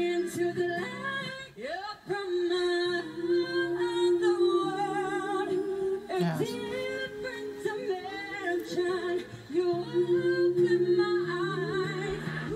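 Live female pop singing from a girl group's performance, the lead held on long notes with lower sustained tones beneath. A little after halfway it cuts abruptly to another live performance.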